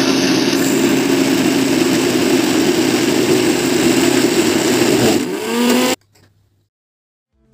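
Electric mixer grinder running steadily as it grinds walnuts and radish into a chutney paste. Its hum shifts in pitch near the end and cuts off about six seconds in, leaving near silence.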